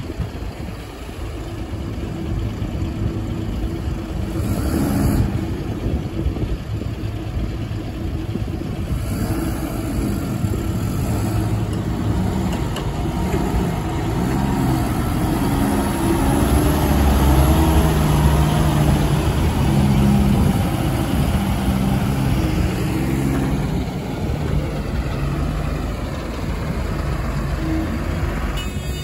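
JCB backhoe loader's diesel engine working hard while digging and loading mud, its pitch rising and falling as it revs up and down. It is loudest about two-thirds of the way through.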